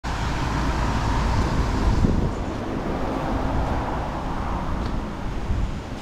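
Strong typhoon wind rushing and buffeting the microphone in gusts, with heavy low thumps about two seconds in and again near the end.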